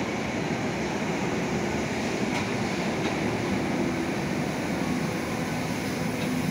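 A Berlin U-Bahn train running along the platform of an underground station: a steady rumble of wheels on rail, echoing off the station walls, with a couple of faint clicks.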